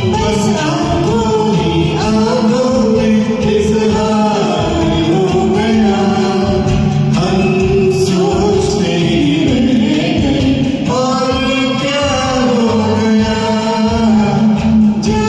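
Singing over a karaoke backing track of a Hindi film duet.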